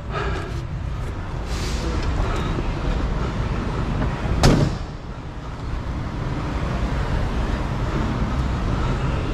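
A Volvo semi-truck's cab door shutting with a single sharp thud about four and a half seconds in, over a steady low rumble.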